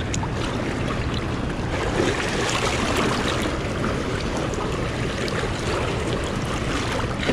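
Fast-flowing river water rushing and splashing around bare feet and legs wading in the current.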